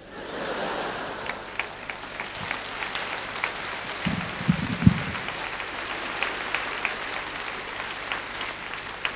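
Concert-hall audience applauding a stand-up comedian's punchline: dense clapping that swells in at the start and thins out toward the end, with a few dull low thuds about four to five seconds in.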